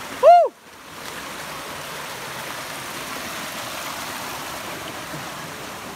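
Shallow forest stream running over rocks and a small cascade, a steady rushing of water. Just after the start, a brief loud call that rises and falls in pitch cuts across it, and the water sound drops out for a moment.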